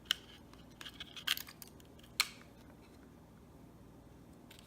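Clicks and scrapes of hard plastic as batteries are plugged into a small toy quadcopter, with one sharp click just after the start, a cluster around one second in and a single sharp snap a little after two seconds.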